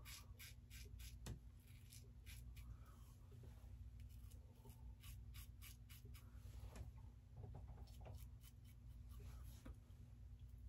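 Faint, irregular run of short scratchy strokes from an Aylsworth DrakKant stainless steel safety razor with an open comb plate, cutting stubble through shaving lather on the third pass.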